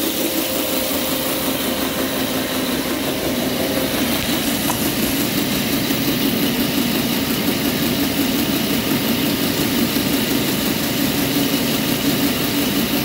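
Refrigerant recovery machine running steadily, its compressor chugging a little as it pulls liquid refrigerant.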